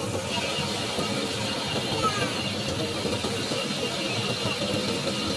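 Fishing boat machinery running steadily.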